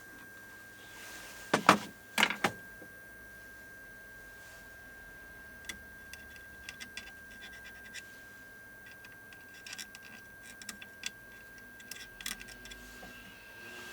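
Small clicks and light taps of hand tools working on a circuit board during hand soldering. A few sharp clicks come about two seconds in, then scattered faint ticks, over a steady high-pitched whine.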